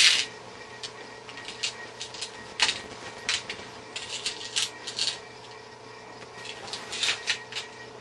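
Metal clicking and scraping of screws and a screwdriver against a computer power supply's sheet-steel housing and case plate: irregular sharp clicks, the loudest right at the start, with clusters in the middle and near the end. A faint steady hum runs underneath.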